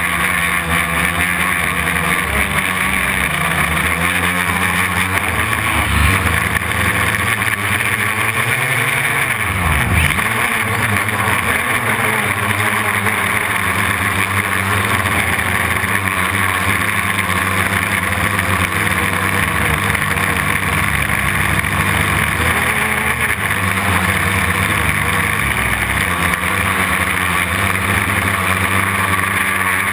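Brushless motors and propellers of a homemade quadcopter, heard from a camera on its frame: a steady buzzing whine whose pitch shifts with the throttle, dropping sharply and climbing back about ten seconds in.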